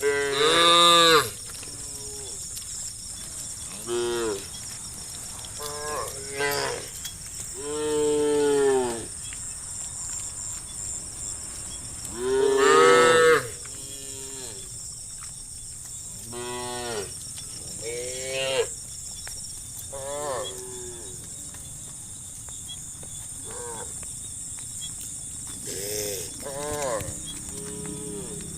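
A herd of cattle mooing: about a dozen separate calls from different cows, some near and some farther off, the loudest about a second in and again around thirteen seconds in. A steady high-pitched hiss runs underneath.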